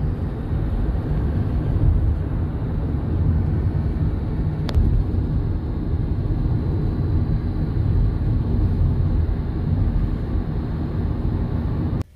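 Steady low road and engine rumble heard from inside a moving car, with one faint click about halfway through. It cuts off suddenly near the end.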